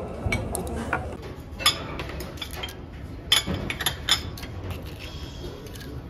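Chopsticks and a spoon clinking against ceramic bowls, a few sharp clinks over a low restaurant background.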